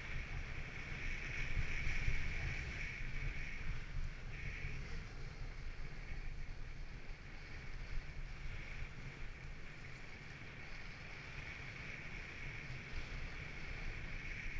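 Wind buffeting the microphone with a low rumble while a Hogsbak slides down a groomed snow run, its runners hissing steadily over the packed snow.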